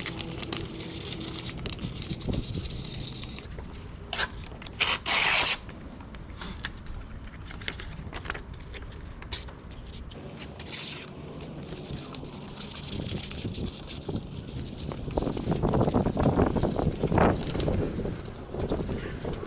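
A cloth or wipe scrubbing along the exhaust header pipe of a Triumph Speed Twin, an uneven rubbing and scraping with short crackles. The rubbing grows louder about three-quarters of the way through.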